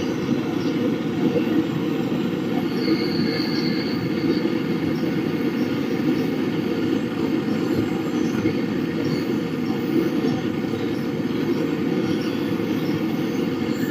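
Gas brazing torch flame burning with a steady roar while a refrigerant pipe joint on a replacement fridge compressor is brazed.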